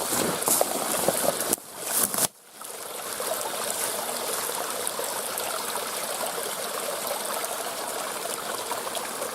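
Small hillside stream running and trickling, a steady rush of water with a brief break about two seconds in.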